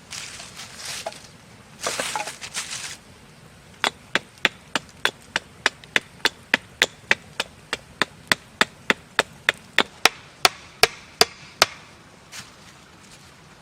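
Wood being chopped: a few seconds of rough scraping and rustling, then a fast, even run of sharp chops, about three and a half a second, that stops shortly before the end.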